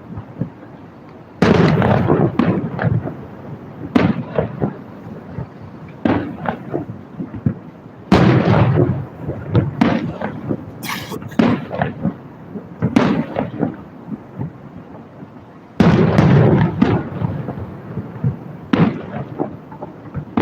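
Fireworks shells bursting in a series of booms, each followed by a rolling rumble. The heaviest bursts come about a second and a half in, at about eight seconds and at about sixteen seconds, with smaller bangs and crackles in between.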